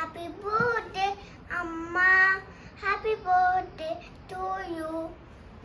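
A child singing in high-pitched phrases with held notes.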